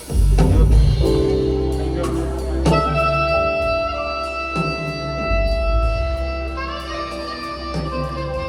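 Saxophone with a live backing band playing a slow piece: long held melody notes over a steady bass, with a second, higher held line joining about two-thirds of the way through.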